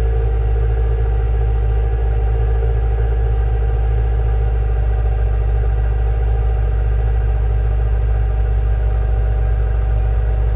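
2017 Subaru WRX's turbocharged 2.0-litre flat-four idling steadily after a cold start, heard at the quad exhaust tips. It is a constant deep, even note that holds steady.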